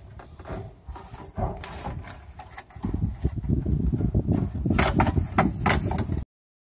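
Knocks, clunks and scraping as a replacement radiator is lowered and worked into place against its mounts in a car's engine bay, growing busier and louder about three seconds in, then cutting off suddenly near the end.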